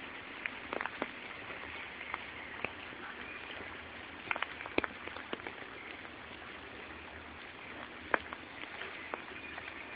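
Rainwater dripping from wet trees after a shower: scattered, irregular sharp drops over a steady hiss.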